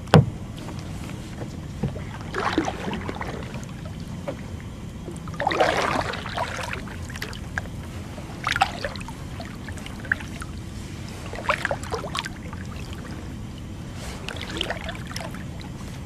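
Kayak paddle strokes splashing in swamp water about every three seconds, after one sharp knock at the very start, over a steady low hum.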